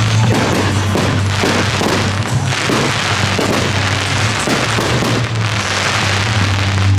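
Aerial fireworks going off one after another, many overlapping explosions, over music with a steady low bass.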